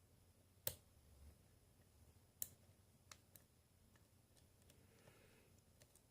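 Faint metallic clicks from a Master Lock Pro Series padlock being picked with a hook pick under tension: two sharper clicks almost two seconds apart, then a couple of fainter ticks. This is the pick working the pin stack while the picker hunts for the last unset pin.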